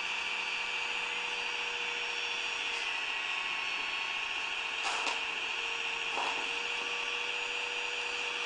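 Small electric motors and gearboxes of a radio-controlled 1/16 Bruder Caterpillar excavator whining steadily, with two short scrapes about five and six seconds in.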